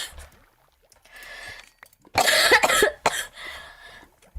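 A woman coughing with a phlegmy cold: a quieter rasping breath about a second in, then a loud cough about two seconds in and a shorter one just after.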